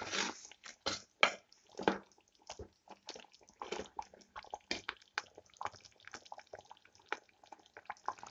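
Thick chicken green masala gravy bubbling in a clay pot, with a steel spoon stirring through it: a run of irregular small pops and plops, a few louder ones in the first couple of seconds.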